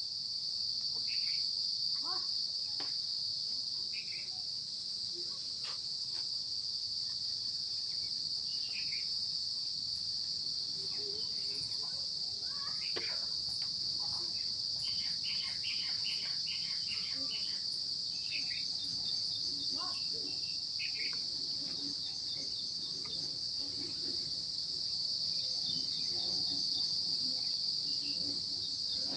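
Steady, high-pitched insect chorus, with faint short chirps scattered through it.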